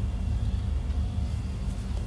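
Low, steady background rumble with a faint hum, with no distinct event standing out.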